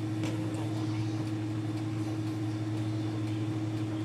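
Steady low electric hum from a running kitchen appliance motor, with a few faint light clicks of a small knife working a shallot over a wooden board.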